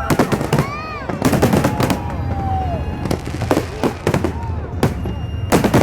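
Aerial fireworks bursting in a rapid, irregular series of bangs and crackles, loudest near the start and again at the end, with crowd voices in between.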